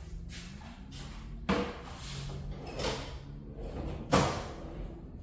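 Three sharp knocks about a second and a half apart, each with a short ring after it, the third the loudest.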